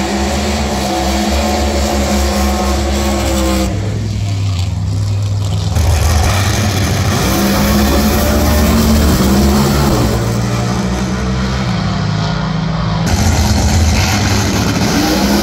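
Drag racing cars' engines running and revving, the pitch climbing as they accelerate, once around the middle and again near the end. The sound changes abruptly several times.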